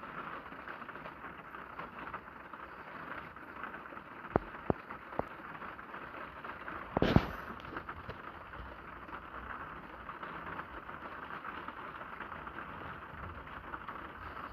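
Rain pattering on the roof of a parked car, heard from inside the cabin as a steady crackling hiss. A few sharp clicks fall about four to five seconds in, and a louder thump about seven seconds in.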